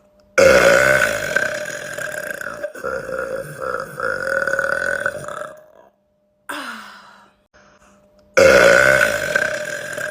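A woman burping: a long, loud burp of about five seconds, then a short, fainter one falling in pitch, then another loud burp starting near the end.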